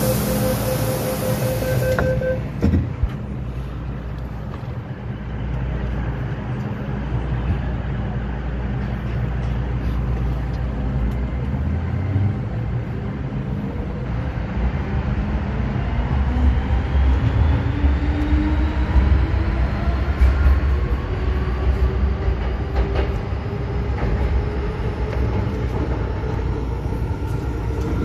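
MTR M-Train electric multiple unit pulling out of a station: a short hiss and steady tone in the first two seconds, then a low rumble of wheels on rail. From about twelve seconds in, the traction motors whine, rising steadily in pitch as the train accelerates.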